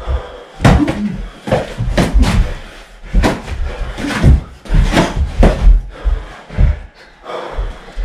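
Boxing gloves landing in a sparring exchange: irregular slapping thuds of punches, about two a second, with scuffling between them.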